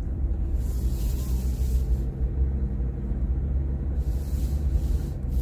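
Steady low rumble of a car's engine and road noise heard from inside the cabin while driving slowly, with a soft hiss of tyres on wet pavement that comes and goes.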